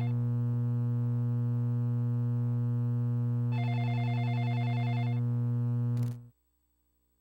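Telephone line signal left on the broadcast after a call ends: a steady low buzzing hum, with a higher tone sounding twice for about a second and a half each, then the line cuts off suddenly about six seconds in.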